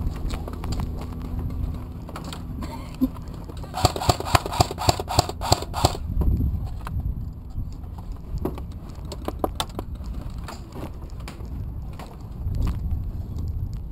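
Rustling and bumps of a player moving with gear, with a quick run of about eight sharp clicks, about four a second, a little after the start.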